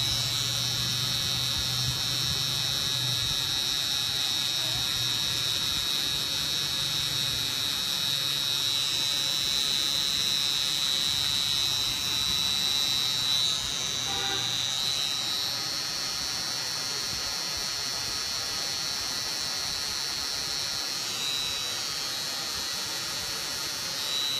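Permanent-makeup tattoo pen running with a steady high-pitched electric whine as it works an eyebrow tattoo. Its pitch wavers briefly about halfway through and again near the end.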